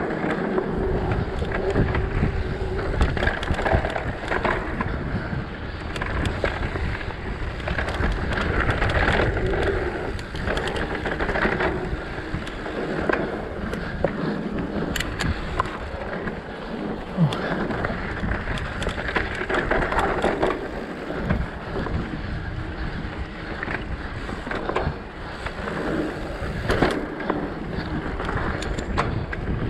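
Mountain bike ridden over a dirt singletrack: knobby tyres rolling and crunching on dirt and loose stones, with the bike clattering and knocking over bumps and wind buffeting the microphone.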